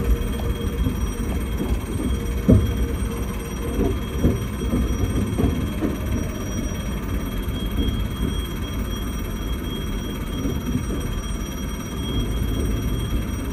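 Electric commuter train running heard inside the driver's cab as it arrives at Kamata terminal: a steady low rumble with a few sharp knocks from the wheels crossing points, the loudest about two and a half seconds in. A steady high-pitched tone sounds throughout.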